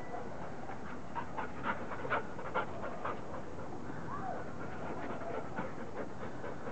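A dog panting with quick, short breaths, loudest between about one and three and a half seconds in.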